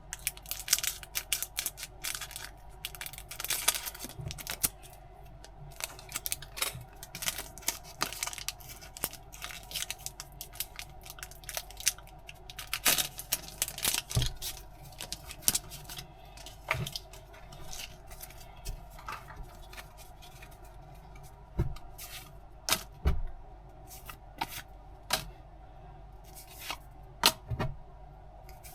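Packaging being handled and torn open: irregular crinkling, ripping and sharp clicks, dense for the first half and thinning to scattered taps later.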